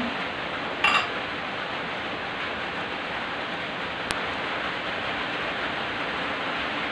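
Steady hissing background noise, with a short louder sound about a second in and a faint click near four seconds.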